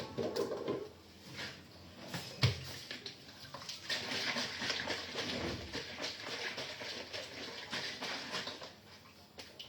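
Water running from a tap into a kitchen sink while dishes are washed, with a sharp knock of crockery about two and a half seconds in and light clatter throughout.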